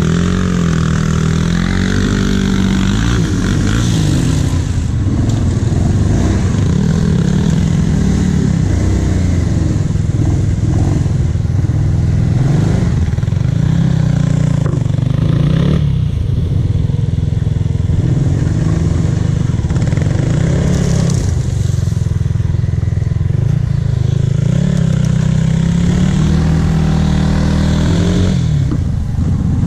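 Quad bike engines running: a nearby ATV engine runs continuously, its pitch rising and falling with the throttle, as a quad revs while climbing through loose sand.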